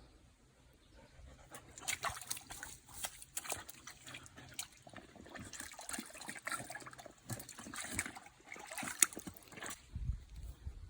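Shallow creek water splashing and trickling in irregular bursts. It starts about two seconds in and stops just before the end.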